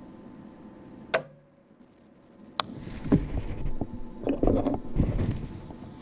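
The main power relay in a brewing control panel clicks sharply, and the panel's steady hum drops out. About a second and a half later a second click brings the hum back, followed by a run of irregular clunks and rattles.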